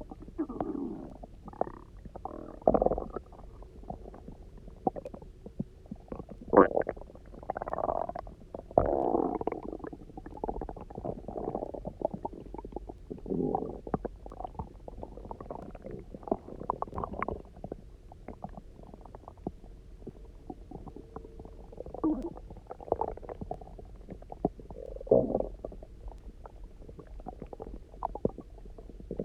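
An empty stomach growling and gurgling, hunger noises after a day without food and a lot of water drunk. The gurgles and squeaks come irregularly and are resonant. They are loudest a few seconds in and around a third of the way through, with a quieter stretch past the middle.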